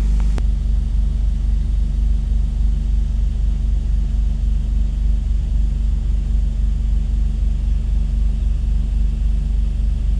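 Car engine idling steadily with a deep, even rumble.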